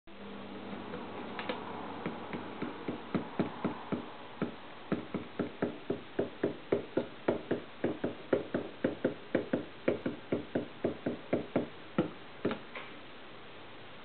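A finger tapping out a steady beat on a metal canister, short ringing taps at about four a second that start about two seconds in and stop near the end.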